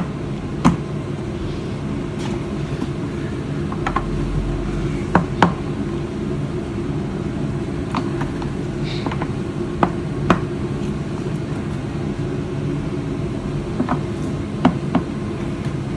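Scattered sharp plastic knocks and clicks, a dozen or so at uneven intervals, as the push-in wheels are knocked into the base of a Kärcher WD 4 wet-and-dry vacuum. A steady low drone runs underneath.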